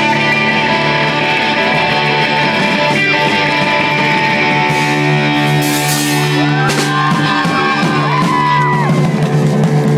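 Live rock band playing, with electric guitar to the fore over a drum kit; from about halfway in, bending guitar notes rise and fall over the held chords.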